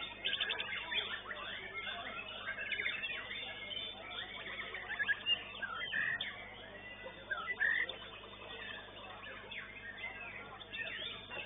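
Several caged white-rumped shamas (murai batu) singing at once, a dense overlapping mix of chirps, whistles and fast trills.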